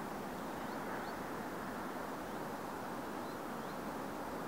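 Steady outdoor background noise, even and without pitch, with a few faint, short rising bird chirps: two about a second in and two more a little past three seconds.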